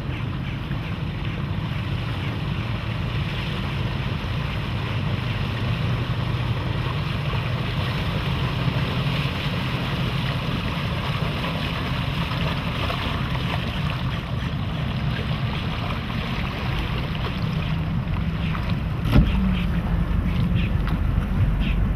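Bowrider under way on its MerCruiser 3.0-litre sterndrive engine: a steady engine drone with water rushing along the hull and wind buffeting the microphone. A short knock comes near the end, after which the deep wind rumble grows louder.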